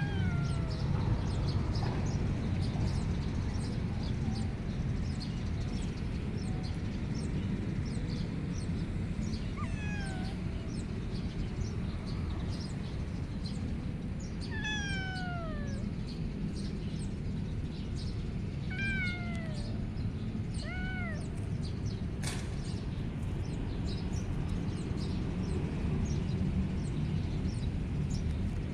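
Calico kitten meowing five times, widely spaced, each meow mostly falling in pitch, the longest about halfway through. Under the meows runs a steady low rumble.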